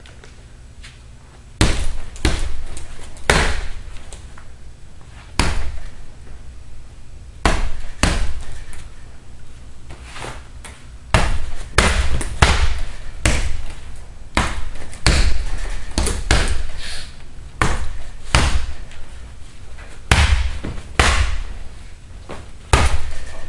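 A heavy punching bag being punched and kicked hard: about twenty sharp, heavy hits at an irregular pace, a few spaced out at first and coming faster from about halfway through.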